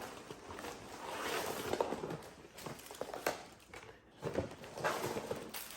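Paper bags and food packaging rustling and crinkling as they are handled, with scattered light knocks.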